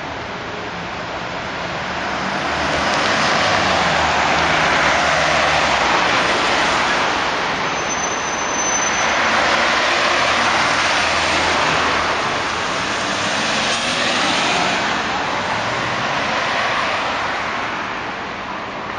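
Street traffic: vehicles passing one after another, the noise swelling and fading about three times.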